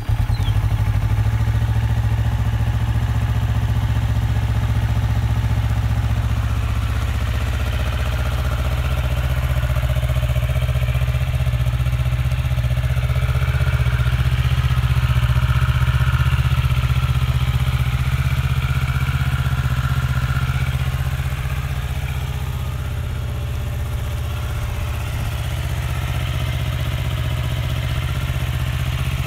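2014 Kawasaki Ninja 650's 649 cc parallel-twin engine idling steadily through its stock exhaust.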